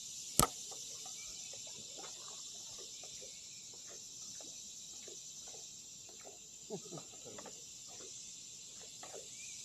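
Steady high-pitched drone of insects over the creek, with faint scattered drips and trickles of water close by. A single sharp click about half a second in.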